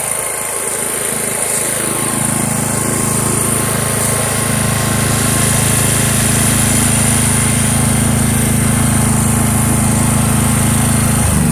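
Small portable petrol generator running steadily, its engine note slightly louder after about two seconds. Right at the end the note drops and slows as the generator is shut down.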